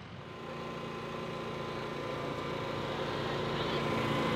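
Small portable generator engine running at a steady speed, growing gradually louder.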